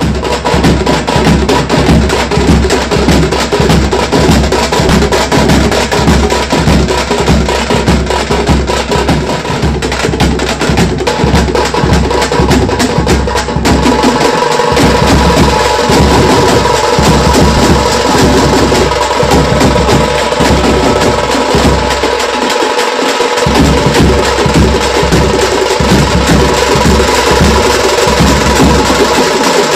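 Tamate frame drums beaten fast and loud, a dense, driving rhythm of sharp slaps. About halfway through, a steady pitched tone joins over the drumming.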